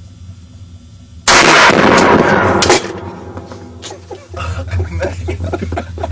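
One rifle shot fired in a small indoor range, about a second in. It is loud enough to overload the recording, and its blast and echo last about a second and a half. Voices and laughter follow near the end.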